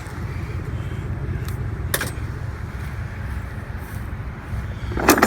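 Steady low road rumble of a car or truck on the move, heard from inside, with a single click about two seconds in and a short loud rattle near the end.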